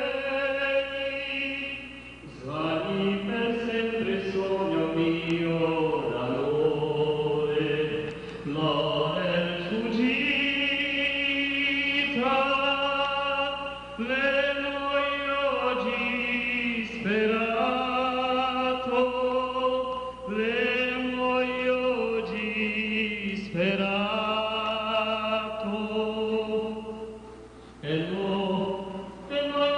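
A man singing solo into a microphone through a PA system, in long phrases of sustained notes, some with vibrato, with short breath pauses between phrases.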